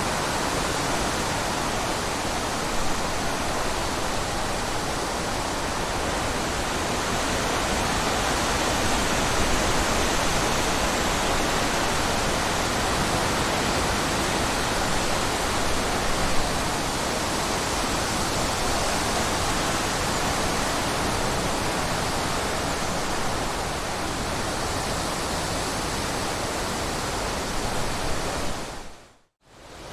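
Steady rushing of water, an even unbroken wash of noise. Shortly before the end it fades out to near silence for a moment, then comes back.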